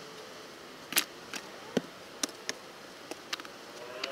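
A series of sharp wooden knocks and clacks, about eight in four seconds at irregular spacing, the loudest about a second in, as cut logs are handled and struck against one another.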